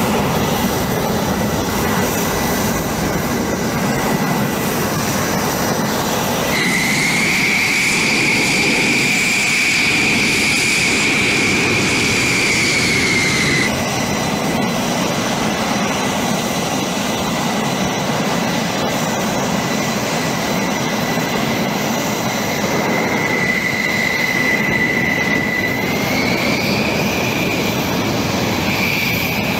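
F-16 fighter jet engines running at idle and taxi: a steady rushing roar with a high, piercing whine on top. The whine turns louder and slightly higher about a fifth of the way in, falls back near the middle, and rises a little again near the end.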